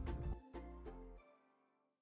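Background music ending, its last notes fading to silence about a second and a half in.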